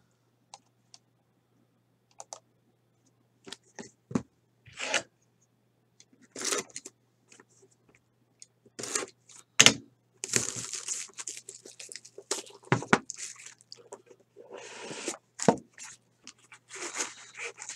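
A sealed box of Leaf Metal Draft trading cards being torn open and handled by hand: irregular tearing and scraping rustles with scattered sharp clicks. The loudest is a single click just before ten seconds in.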